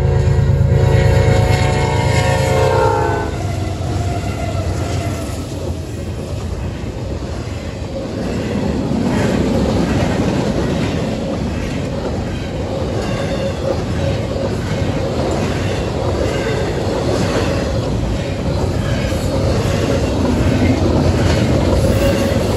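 A freight locomotive's horn blowing loud, its chord dropping in pitch as it passes and cutting off about three seconds in. Then a double-stack intermodal train runs past with a steady rumble of well cars and repeated wheel clicks over the rails.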